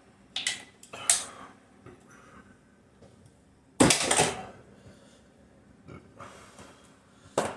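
A person chugging the last of a 24 oz aluminium can of drink: scattered short clinks and handling sounds of the can, with a louder sudden sound about four seconds in and another near the end.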